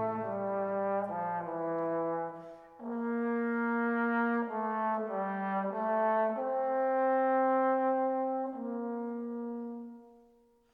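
Background music: a slow piece of long held notes moving through changing chords, fading out near the end.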